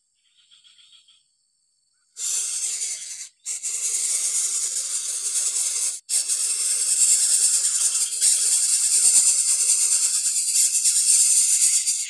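Coucal nestlings making loud, harsh hissing begging calls as they gape at the adult bird. The hissing starts suddenly about two seconds in, with two brief breaks.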